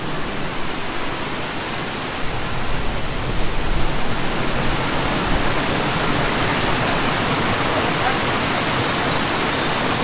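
Small waterfall rushing: a loud, steady roar of falling water that grows a little louder about two seconds in.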